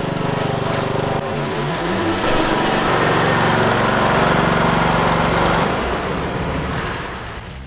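Riding lawn tractor's engine running as the tractor is driven along, its sound fading away near the end.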